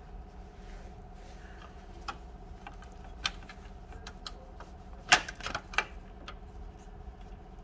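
Screwdriver clicking and scraping on a screw and the plastic and sheet-metal parts of a copier's bypass-tray separation roller holder as the screw is worked loose: scattered sharp clicks, with a cluster of louder ones about five seconds in, over a steady faint hum.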